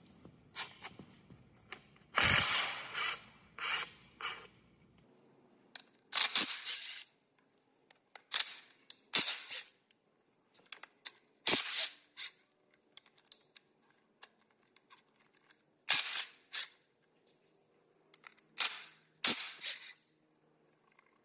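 A cordless impact tool with a socket on an extension hammering out the bolts of a dozer final drive's outer seal retainer, in a string of short bursts, often two close together, with pauses between them.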